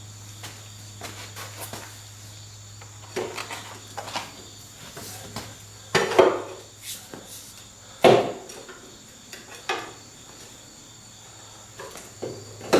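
Metal tools and parts knocked and clinked together while working on the car's front suspension, a scattered series of sharp knocks with two louder ones about six and eight seconds in.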